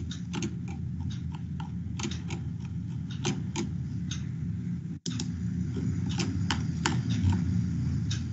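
Irregular clicking of typing on a computer keyboard over a steady low background noise; the call audio cuts out for an instant about five seconds in.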